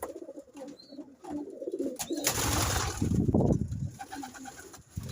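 Domestic pigeons cooing in a loft, low repeated calls. About two seconds in, a loud rustling burst lasting over a second covers the cooing.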